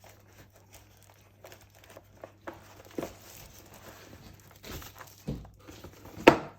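Packaging from a keyboard box being handled: a foam sheet and paper inserts rustling and crinkling, with scattered light taps and one sharp knock near the end.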